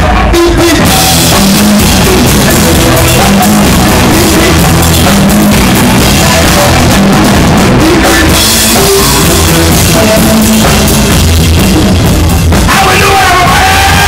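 Live bluesy rock band playing loud: hollow-body electric guitar over a drum kit with crashing cymbals, with held notes coming in near the end, heard through a cell phone's microphone.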